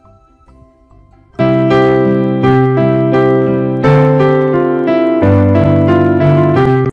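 Piano music: soft notes at first, then loud piano chords with a melody come in about a second and a half in.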